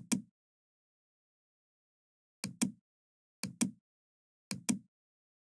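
Computer mouse clicks, each a quick press-and-release double click: one at the very start, then three more about a second apart from about two and a half seconds in.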